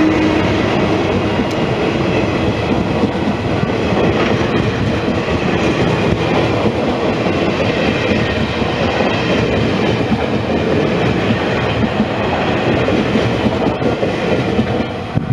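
A Taiwan Railway electric-locomotive-hauled Chu-kuang express train running past close by. Its wheels rumble and clatter steadily on the rails as the coaches go by, and a steady hum from the locomotive stops about half a second in.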